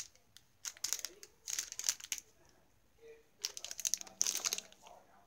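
Packaging crinkling as it is handled, in three short bouts of crackling.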